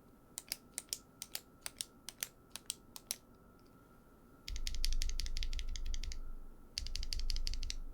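PaperMate Profile 1.4 mm retractable ballpoint pen being clicked as a reference sound: about a dozen separate sharp clicks over the first three seconds, then, after a pause, two runs of fast, dense clicking.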